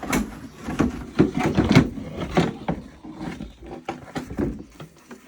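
A rapid run of knocks and clattering in a small room as things are moved about and a bucket is grabbed from among them.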